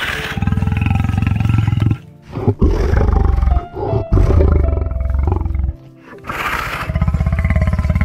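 Big cat roaring: three long, deep, pulsing roars with short breaks between them, over background music.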